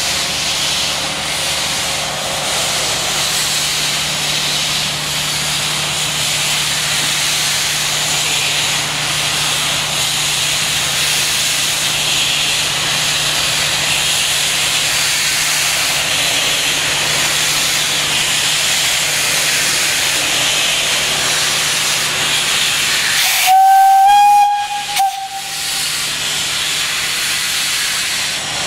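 Steam hissing steadily from a PKP TKp (Śląsk) 0-8-0T steam tank locomotive standing in steam. Near the end its steam whistle sounds one loud blast of about two seconds, followed by a brief second toot.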